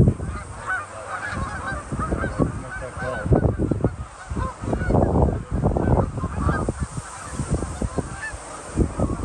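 A large flock of geese honking continuously, many birds calling at once and overlapping.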